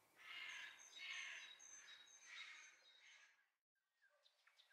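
Faint birds chirping in the background ambience: three soft bursts of chirping in the first three seconds, then near silence with a few scattered faint chirps.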